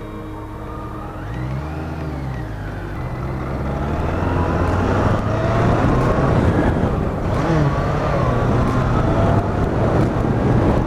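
BMW K100RS motorcycle's inline-four engine under way on the road. The engine note rises and falls once about two seconds in, then runs steadily under growing wind and road noise as the bike picks up speed and the sound gets louder.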